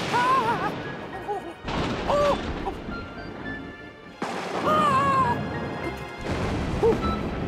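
Cartoon soundtrack: music with three noisy crashing bursts, each carrying short squeaky cries that bend up and down in pitch.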